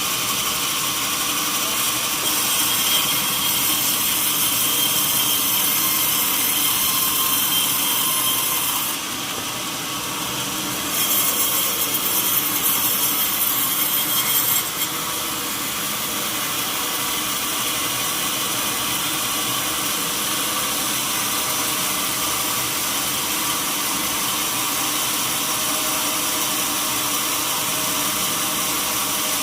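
Sawmill saw cutting lengthwise through a long mahogany log, a continuous noisy cutting sound. It runs louder for several seconds, dips briefly about a third of the way in, swells again, then settles to a steady level.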